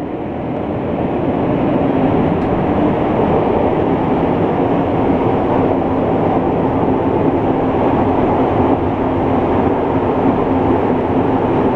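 Rubber-tyred MR-73 Montreal metro car in motion, heard from inside the car: a steady running rumble with a faint hum. It grows louder over the first couple of seconds as the train picks up speed, then holds steady.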